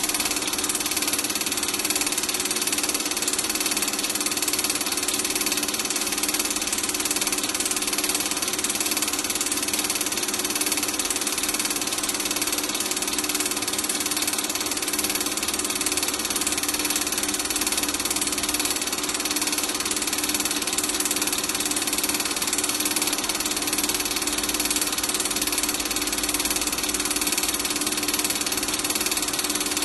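Super 8 film projector running: a steady motor whir and hum with several constant tones, unchanging throughout.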